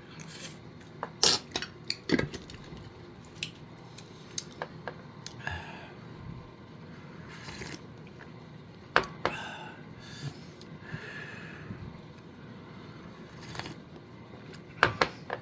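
A spoon scraping and clinking against tableware: a string of sharp clicks and knocks with a few short ringing notes.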